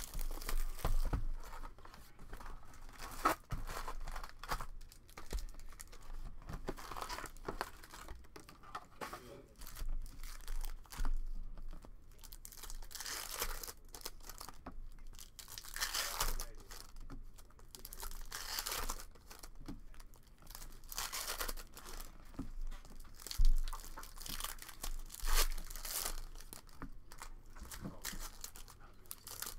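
2015 Bowman Draft foil trading-card packs being torn open and crinkled by hand, in repeated bursts of tearing and rustling with short sharp crackles between them.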